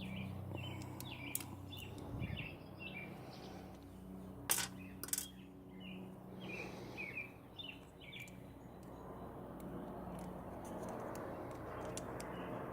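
Small birds chirping in the background over a low steady hum, with two sharp clicks about four and a half and five seconds in.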